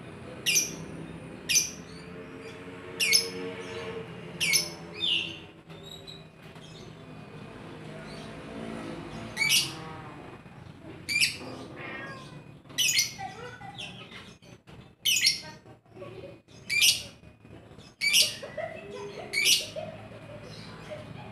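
Lovebird calling with short, shrill chirps, about one a second, with a pause of a few seconds in the middle.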